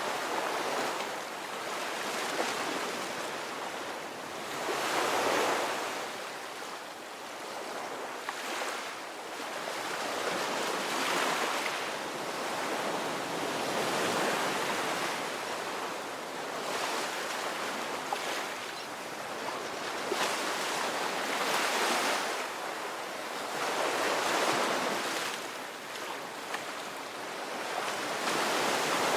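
Ocean waves breaking and washing up a beach: a continuous surf wash that swells louder with each wave every few seconds.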